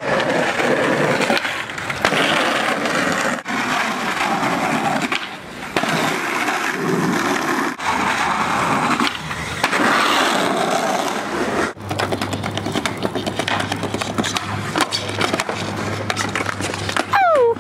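Skateboard wheels rolling over concrete and paving, a continuous rough rumble. About two-thirds of the way through it changes abruptly to a smoother roll with a steady low hum.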